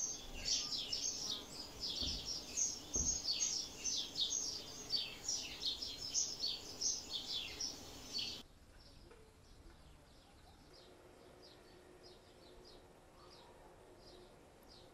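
Small birds chirping busily in quick, repeated high calls. About eight seconds in, the sound cuts abruptly to a much quieter stretch where faint chirping goes on. There are a couple of soft low thumps early on.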